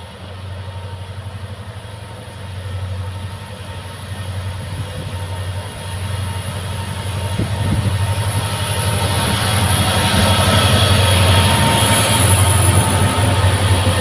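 Twin WDG-4D diesel-electric locomotives, with EMD two-stroke diesel engines, approaching at the head of a freight train: a steady low engine drone growing steadily louder, with wheel and rail noise building over the second half as the locomotives come alongside.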